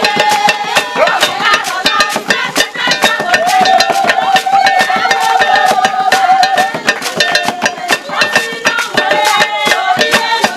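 Esan traditional dance music: singing over fast, dense hand percussion, with one long sung note held through the middle.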